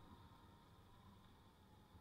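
Near silence, with only a faint low rumble.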